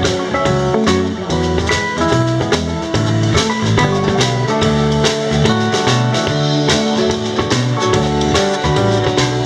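Live band playing an instrumental passage with electric guitars, acoustic guitar and drum kit, without singing, over a steady drum beat.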